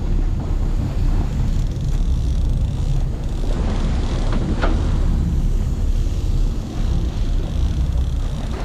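Charter sportfishing boat's engines running with a steady low rumble, mixed with wind on the microphone.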